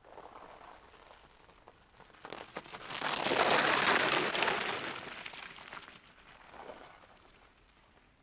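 Bicycle tyres rolling through a frozen puddle, the thin ice cracking and breaking up with a dense crackle that is loudest about three to five seconds in, then fades.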